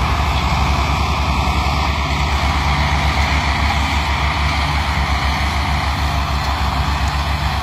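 Belarus 510 tractors' diesel engines running hard, pulling a heavily loaded sugarcane trailer. It is a steady, low, fast-pulsing engine note with no let-up.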